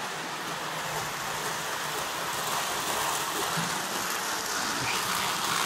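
Marx 333 toy steam locomotive pulling its train around the track: a steady whirring rattle of motor, gears and wheels.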